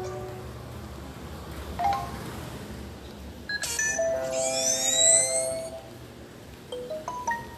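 Samsung Galaxy J2 Core (2018) notification tones playing one after another. There are short chimes at the start and about two seconds in. In the middle comes a longer tone with sweeping rising whistles. Near the end a quick run of rising notes plays.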